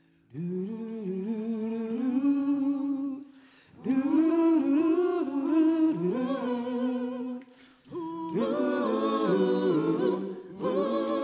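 A small vocal group singing a cappella in harmony, in three phrases with short breaks between them.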